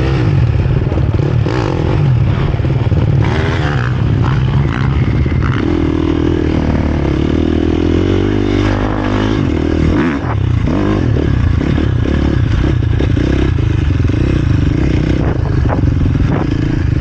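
Dirt bike engine heard close up from the rider's own onboard camera, pulling away and riding under changing throttle, with a brief drop in level about ten seconds in.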